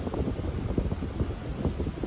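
Wind buffeting an unshielded phone microphone: a gusty low rumble and buffeting with uneven flutters.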